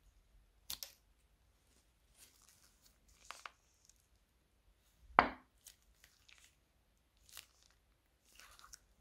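Scattered short crinkling and tearing sounds of plastic piping bags and slime being handled, with one louder sharp crackle about five seconds in.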